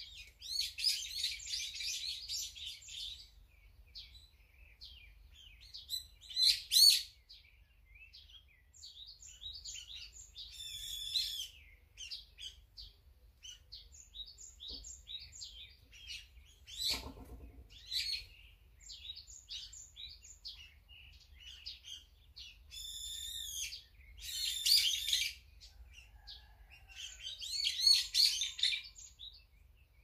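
Brown-eared bulbuls and other small songbirds calling: short chirps throughout, with several louder bursts of excited calling, the loudest about a quarter of the way through.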